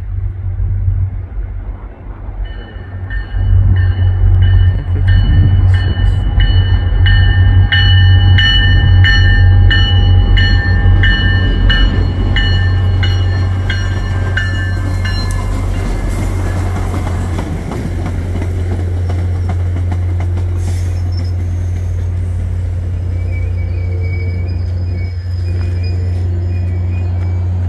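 MBTA commuter diesel locomotive passing close with a deep engine rumble, its bell ringing about twice a second, loudest as the locomotive goes by. The bell stops about halfway through, leaving the steady rumble of the bilevel passenger coaches rolling past on the rails.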